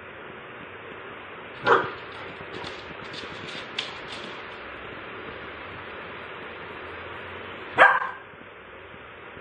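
A puppy barking twice, one short bark a couple of seconds in and another near the end, over a steady low hiss.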